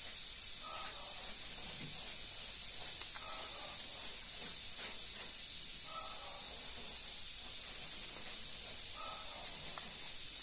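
Steady background hiss, with faint snips of scissors cutting through a sheet of craft foam.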